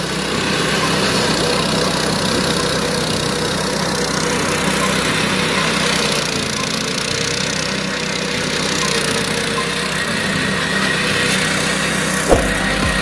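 Engine of a Matsumoto MWG-170 D grass and brush cutter running steadily, with a short knock near the end.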